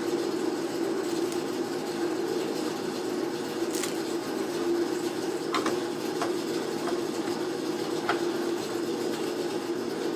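A steady mechanical drone runs throughout, with a few light clicks of metal brake shoe hardware being handled, about four of them between the middle and near the end.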